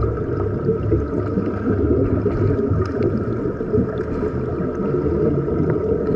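Muffled underwater pool noise recorded beneath the surface: a dense, steady rumble and churn of water stirred by swimmers' fins, with a few faint clicks.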